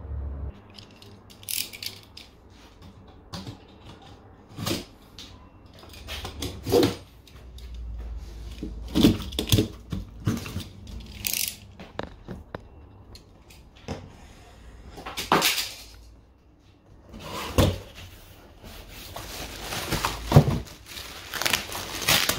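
A cardboard box and its packaging being opened and handled: irregular knocks, scrapes and rustles of cardboard and plastic.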